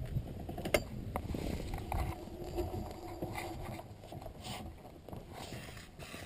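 Scattered mechanical clicks and knocks with rustling from handling the mini trike's frame on the ground, the sharpest click about three-quarters of a second in.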